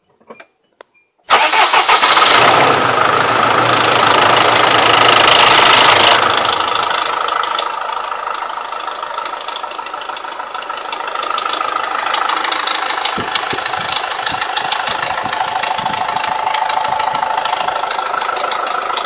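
A car engine catching about a second in and running at a raised speed for a few seconds, then settling into a steady idle. The engine is being run to listen for a knock.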